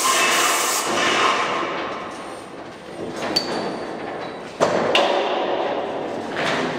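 A hiss that fades out over the first second or two, then a few scattered knocks and clicks, the sharpest about halfway through.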